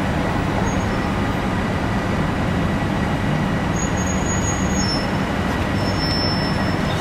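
Bx41 Select Bus's engine running steadily at a standstill: a constant low rumble with a steady hum.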